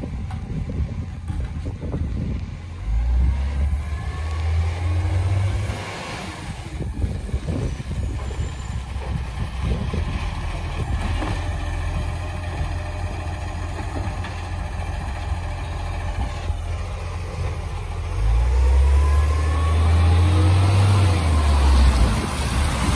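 Dennis side-loader garbage truck running, its engine revving up strongly twice: once about three seconds in while the automatic arm lifts and tips a wheelie bin, and again near the end as the truck pulls away and accelerates past close by. A few knocks come from the bin and arm in between.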